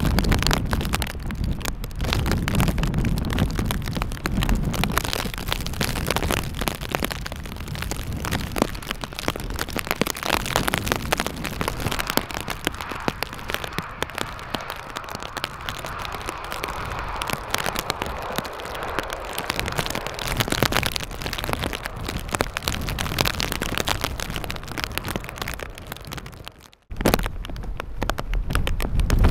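Gusty wind buffeting the microphone and rain, with the engine noise of a jet airliner swelling and fading around the middle. The sound cuts out for a moment near the end, then comes back with louder wind rumble.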